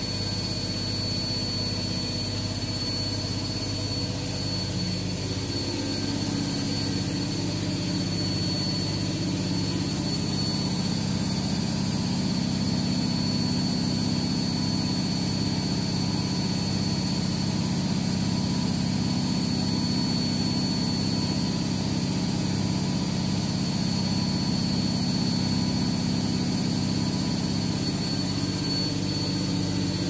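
Proline front-loading washing machine spinning: a steady motor-and-drum hum that grows fuller and a little louder about six seconds in, with a thin high whine running under it.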